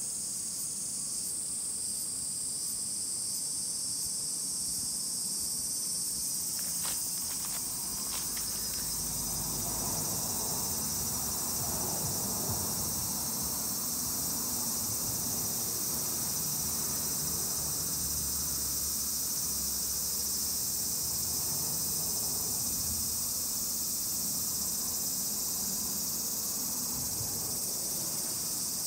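Steady, high-pitched chorus of summer insects, an even dense drone that does not let up, with a few brief handling clicks and rustles about a quarter of the way in.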